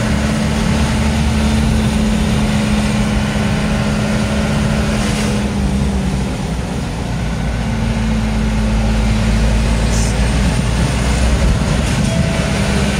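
Truck engine running steadily while the truck drives slowly over a rough track, a continuous low drone with a slight dip about halfway through.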